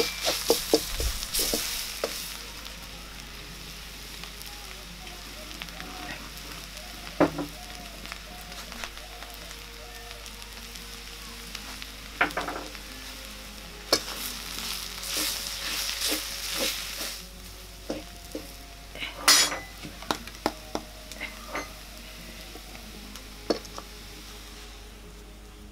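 Potato and vegetable filling sizzling quietly in a metal wok, with a wooden spoon scraping and knocking against the pan: a quick run of clicks at the start, then single knocks now and then over a steady low frying hiss.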